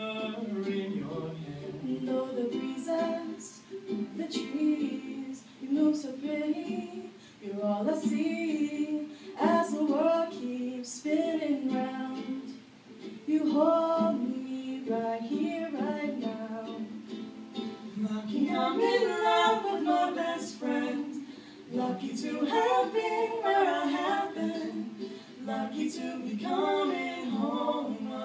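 Live duet performance: a girl singing into a microphone, accompanied by a ukulele.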